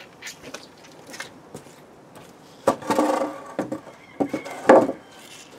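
Wooden pallet being put down and shifted on paving slabs: wood knocking and scraping, loudest about three seconds in and again near the end.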